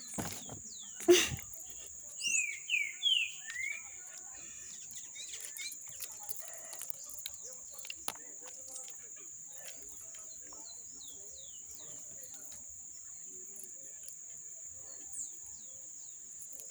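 Birds chirping: a quick run of four short downward-sliding calls a couple of seconds in, then scattered fainter chirps, over a steady high-pitched whine.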